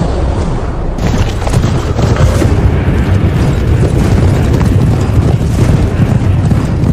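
Loud, continuous rumbling booms from dramatic battle sound effects. They swell and grow brighter about a second in.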